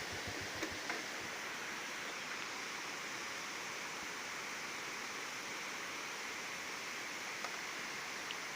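Waterfall: falling water giving a steady, even rushing hiss.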